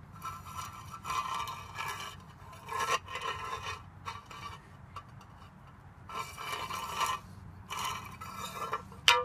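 Empty metal tuna can scraping on concrete as a cat licks out the last of the tuna and pushes it along. The scraping comes in repeated short bursts, the loudest near the end.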